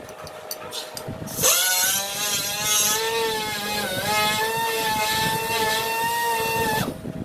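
Yamaha R15's single-cylinder engine revved up sharply about a second and a half in, held at high revs for about five seconds with a brief dip, then dropped back suddenly near the end.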